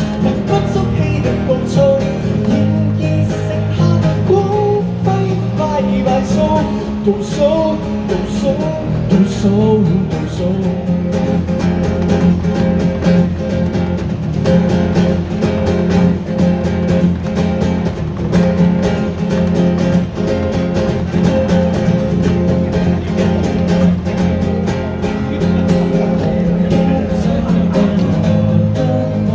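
Live acoustic guitars playing an instrumental break in a song: a wavering melody line over strummed chords for about the first ten seconds, then steady rhythmic strumming.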